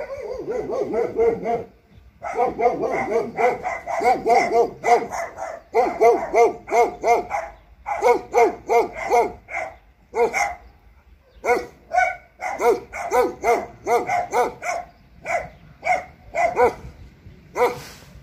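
A dog barking in rapid, excited volleys of several barks a second, pausing briefly about two seconds in and again about ten seconds in.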